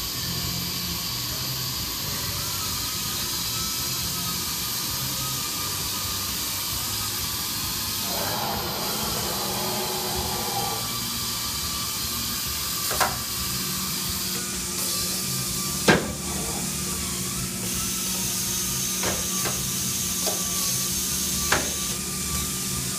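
Motionmaster five-axis CNC router running through its axis moves, the head swivelling and tilting: a steady hiss with a slightly wavering whine and a low hum, broken by a few sharp clicks and knocks, the loudest about two-thirds of the way through.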